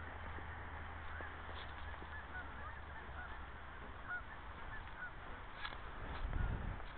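Distant flock of geese honking, many short calls overlapping throughout. Low rumbling of wind on the microphone comes in near the end.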